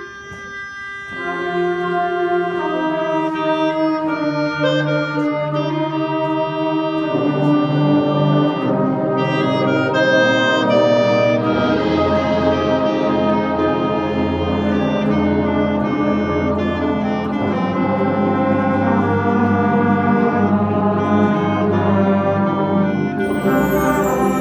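Marching band's brass section playing a slow chorale of held chords that swell from soft to full, with sousaphones adding deep bass notes about halfway through. A crash rings out near the end.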